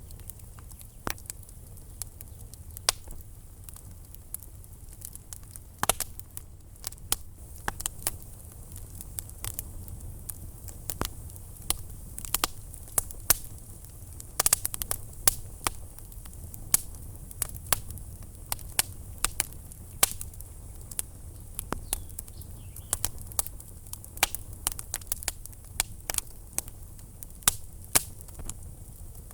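Wood fire burning in a fireplace, crackling with irregular sharp pops and snaps, several a second, over a low steady rumble.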